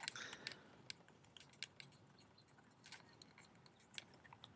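Faint, scattered small clicks and handling noises from twisting loose the mounting knobs of a Yuneec CGO4 handheld gimbal to release its camera, a few close together at the start, then single clicks every second or so.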